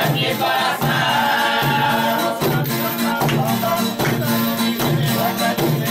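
Men singing together in chorus in folia style, with large drums beating and a guitar strummed underneath.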